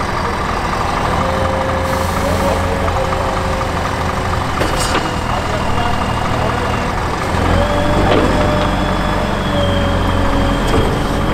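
Claas Torion 1914 wheel loader's diesel engine working, with a steady whine from its hydraulics as it lifts and tips a bucket of chopped maize into a truck trailer. The engine note grows louder about seven seconds in.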